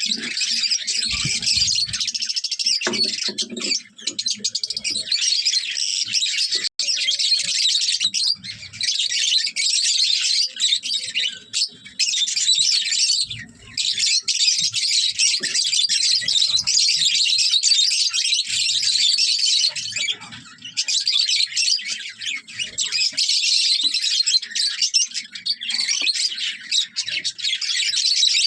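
A flock of lovebirds chirping and chattering nonstop, many high-pitched calls overlapping.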